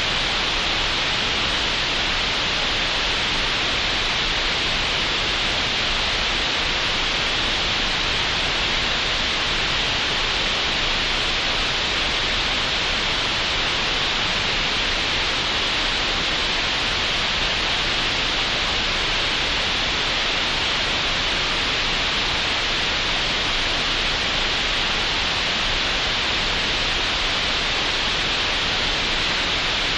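Green noise generated in Audacity: a steady, unbroken hiss of synthetic noise, brightest in the upper middle of the range, that never changes.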